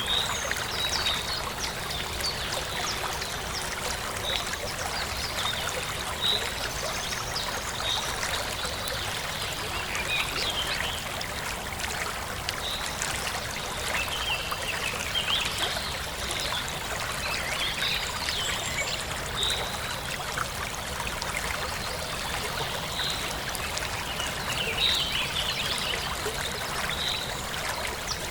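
Steady rush of running water, with short high chirps scattered throughout.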